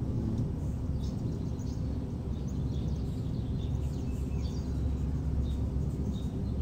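Outdoor background ambience: a steady low rumble with faint, scattered short high bird chirps.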